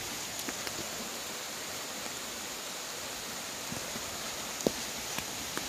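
A few light footsteps or knocks in the second half, the sharpest about two-thirds of the way in, over a steady outdoor hiss.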